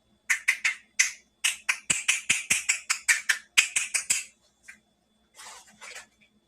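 A quick run of sharp crackling taps and clicks, about four a second, from hands handling small plastic toy pieces and packaging, then a softer rustle near the end.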